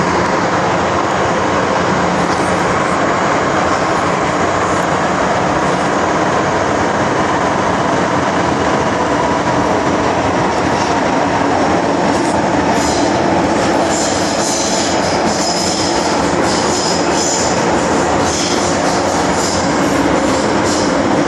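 Old-version MTR Island Line Metro-Cammell electric multiple unit heard from inside the car while running between stations: a loud, steady rumble of wheels and traction equipment. From about halfway through, high-pitched wheel squeal comes and goes repeatedly.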